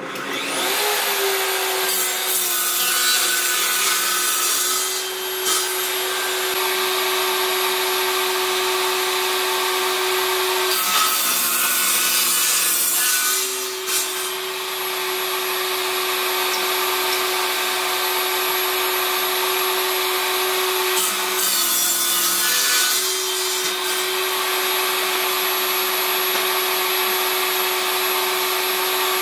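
Table saw starting up and running with a steady motor hum, cutting through a pine board on a crosscut sled three times; each cut brings a burst of rasping cutting noise while the motor note dips under the load.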